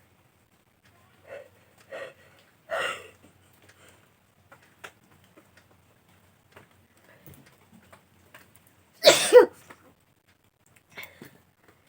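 A woman's sneeze about nine seconds in, a loud two-part burst. Before it come a few short, much quieter sounds as the sneeze builds.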